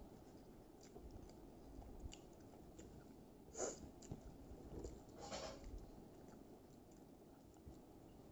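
Faint chewing and small mouth clicks of a person eating a meal by hand, with two brief louder sounds a few seconds in.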